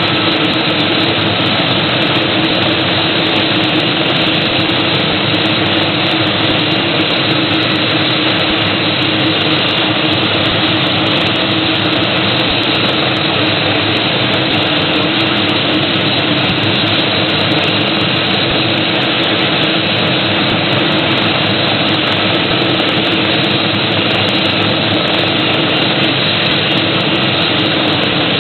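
MD 520N NOTAR helicopter running on the ground: the Rolls-Royce 250 turboshaft, the main rotor and the enclosed anti-torque fan in the tail boom make a loud, steady, unchanging turbine-and-rotor noise.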